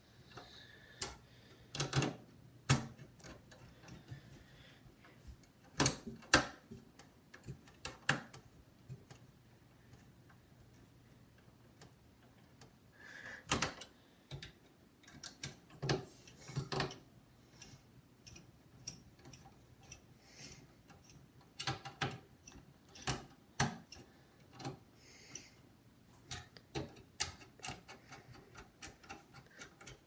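Screwdriver driving down the CPU heatsink's screws on a desktop motherboard: irregular clicks and knocks of the metal tip and screws against the heatsink.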